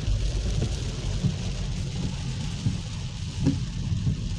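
Rain hitting a moving car's windscreen and body, heard from inside the cabin as a steady hiss over the low rumble of the car on the wet road.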